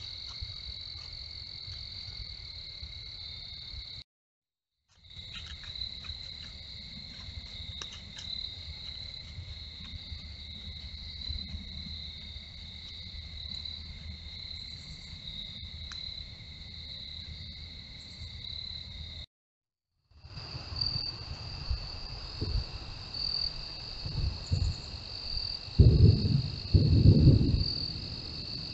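Night insects, crickets, singing in a steady high-pitched chorus that drops out briefly twice. Near the end, several loud low thumps or rumbles come in over the chorus.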